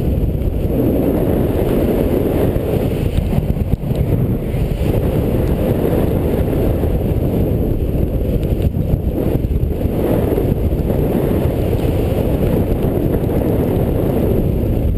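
Steady rush of wind on the microphone of a paraglider pilot in flight, heaviest in the low range, with no let-up.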